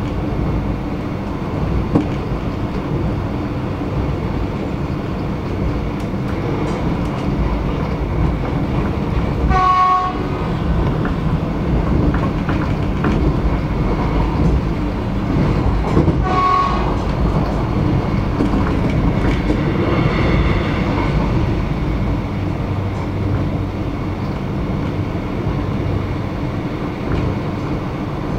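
Inside the front carriage of an X'Trapolis electric train running along the line: a steady rumble of wheels on track. A train horn sounds briefly twice, about ten seconds in and again some six seconds later.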